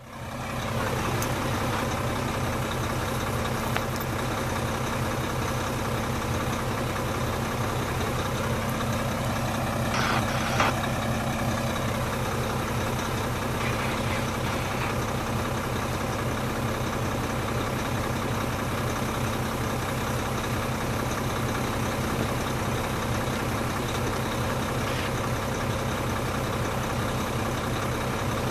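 Distant diesel locomotives of an approaching passenger train, a steady low engine drone with an even pulse. There is a short sharp sound about ten seconds in.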